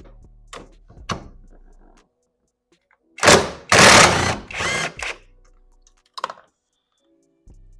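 A wrench working the 19 mm steering-wheel nut loose. There are a few light clicks, then three loud bursts of rapid mechanical rattling about three seconds in, and a single click later.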